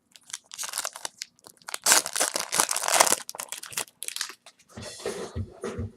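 A trading-card pack wrapper being torn open and crinkled, a dense run of crackling that is loudest in the middle. Near the end, music with a steady low beat comes in.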